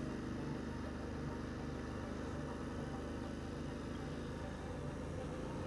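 Motorcycle engine and wind noise heard from inside a helmet with the visor closed, cruising at a steady pace: a low, even engine drone under a faint hiss.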